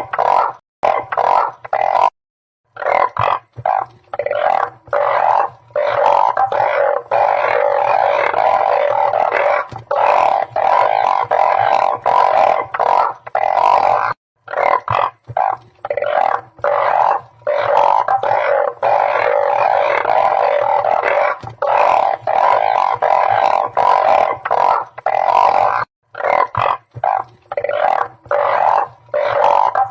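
A dense chorus of blunt-headed burrowing frogs (Glyphoglossus molossus) calling: overlapping, droning croaks with short gaps, the kind of call played back to lure the frogs. The sound cuts out to silence briefly three times, about every twelve seconds, as the recording loops.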